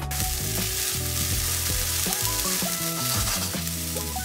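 Black beans, onion and bell pepper sizzling steadily in a lightly oiled nonstick pan, with background music underneath.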